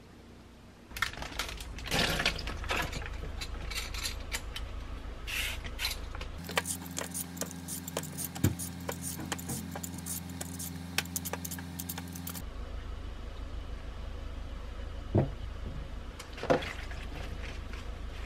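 Kitchen handling sounds: light clicks and clatter, and a hand vegetable peeler scraping the skin off a carrot in quick strokes. A steady low hum runs under the middle part and stops suddenly.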